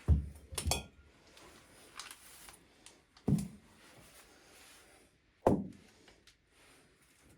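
Kitchen handling sounds: dull knocks of things set down on a board or table, the second with a short glassy clink, then two more single knocks a couple of seconds apart.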